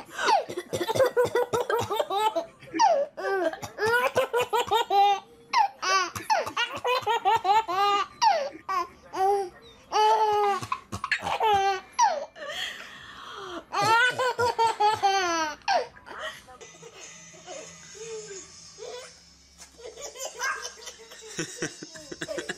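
A baby laughing hard in quick runs of high-pitched, rhythmic laughs, which die away about sixteen seconds in.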